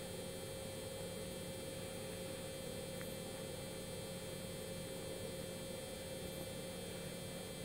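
Steady electrical hum with a faint hiss, unchanging throughout, and one faint tick about three seconds in.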